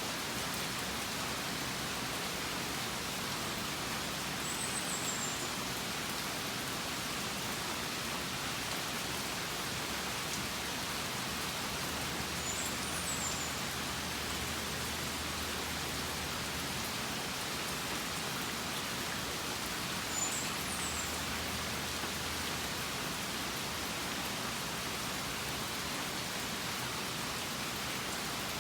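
Steady rain falling, an even hiss with no change in level. Three short high chirps sound faintly above it, several seconds apart.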